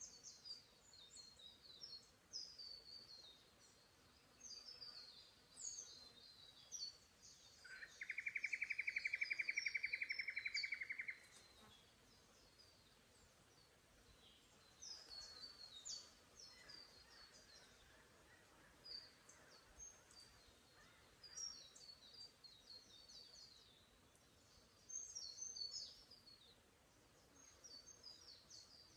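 Faint, high twittering of small forest birds, with many short chirps scattered throughout. About eight seconds in, a louder, lower, fast even trill or buzz runs for about three seconds, then stops.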